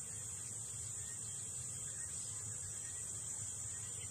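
Steady, high-pitched insect chorus over a low background hum.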